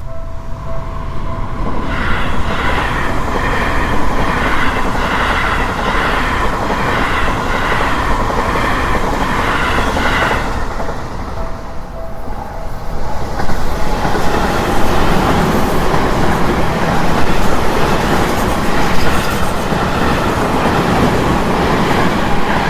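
Seibu Railway electric commuter trains passing over a Japanese level crossing, one after another, with a rhythmic clatter of wheels over rail joints. In a short lull about halfway through, the crossing's steady electronic warning bell is heard on its own before the second train passes.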